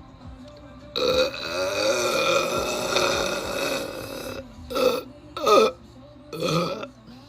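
A person belching: one long, drawn-out burp lasting about three seconds, followed by three short burps in quick succession.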